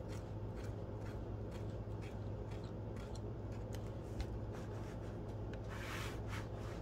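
A marker tip scratching on journal paper, then a hand rubbing and smoothing the page, with small taps and a brief paper rustle near the end, over a steady low hum.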